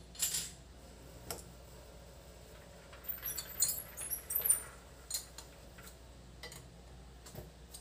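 Light metallic clinks and taps of steel tools and lathe parts being handled at a stopped lathe, scattered at first, then a quick cluster of clinks around the middle, over a low steady hum.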